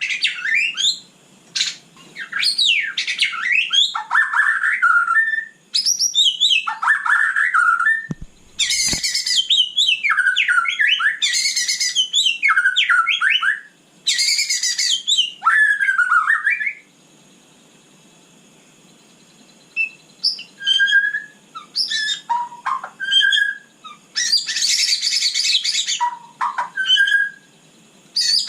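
White-rumped shama singing a varied song of rapid whistles, sweeping glides and trills in bursts with short gaps between them. After a pause of a few seconds past the middle, it gives shorter separate notes and then one more dense burst.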